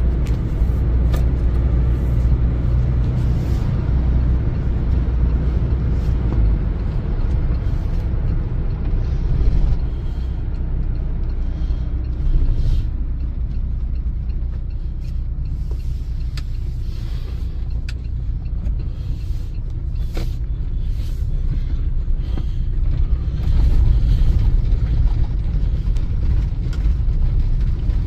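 Car driving along a road, heard from inside the cabin: a steady low rumble of engine and tyre noise that swells briefly about three-quarters of the way through.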